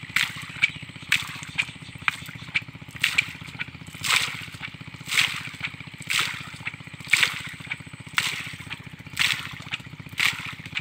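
Hand-boring of a tube well: the pipe is worked up and down, and about once a second a gush of water and mud sloshes and spurts out of its top. A steady low hum runs underneath.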